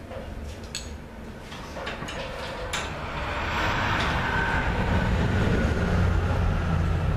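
A few light metallic clicks in the first three seconds, then a low rumble swells up from about three seconds in and holds steady.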